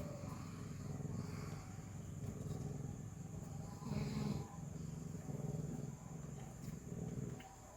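Mother house cat purring in rough low cycles, rising and falling with her breathing, with a brief higher sound about four seconds in.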